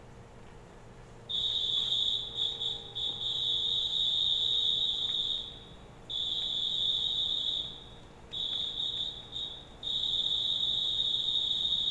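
A high-pitched whistle blown in long, steady blasts with short, irregular breaks between them, starting about a second in. It is typical of a railway platform attendant warning passengers back from the edge as a train comes in.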